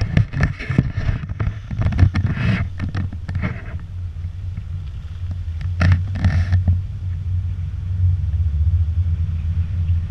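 Steady low rumble of a camera travelling along a wet dirt road. A car passing close by makes the noise louder over the first few seconds, and a brief burst of noise comes about six seconds in.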